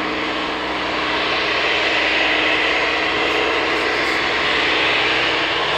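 Aircraft engine running steadily, with a broad hiss that grows slightly louder after about two seconds.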